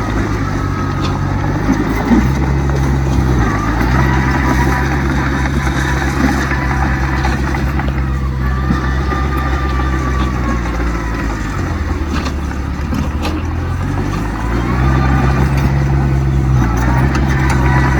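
Heavy diesel engine of earthmoving machinery running steadily under load, its pitch stepping up and down several times as the revs change.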